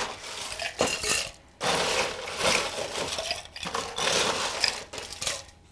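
Ice cubes being scooped and dropped into a stainless steel cocktail mixing tin, clattering and rattling in several bursts.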